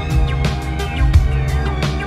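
Vaporwave music: sustained synth chords over a steady drum beat and bass.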